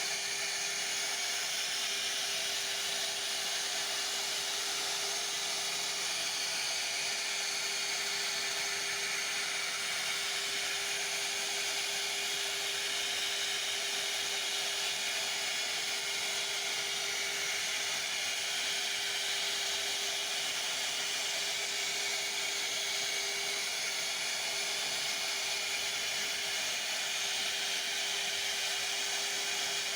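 CNC router (1325 type) spindle running while routing wood. A steady single tone sits over a constant hiss, with no change throughout.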